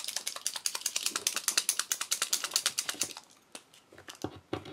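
A paint marker being shaken, its mixing ball rattling in quick clicks, about ten a second, for some three seconds; then a few scattered single clicks.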